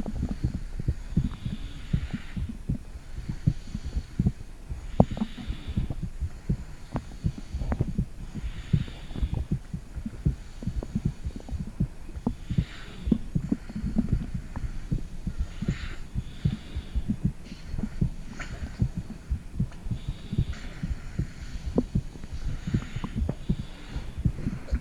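Heartbeat and stomach gurgling picked up by a phone microphone held against the belly: a dense run of soft low thumps, with a faint hiss that comes and goes every few seconds.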